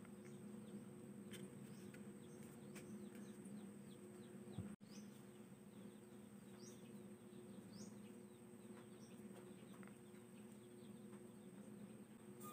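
Near silence: steady low room hum with faint short chirps of birds and a few soft clicks of hands handling the box and phone. The sound drops out abruptly for an instant a little before the halfway point.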